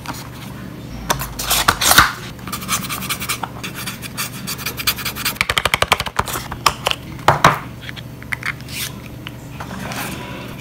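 Hands handling a Redmi 10 phone's cardboard retail box and its contents: irregular scratching and scraping of card and plastic, with a quick run of scratchy clicks about halfway through. An inner cardboard compartment holding the charger and cable is being opened.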